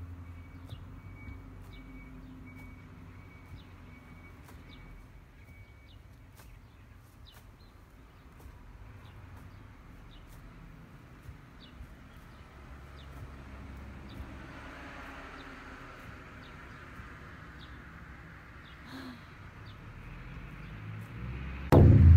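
Outdoor ambience: a faint low rumble and short high chirps about once a second, with a soft rushing swell that rises and falls in the second half. A sudden loud burst of noise comes near the end.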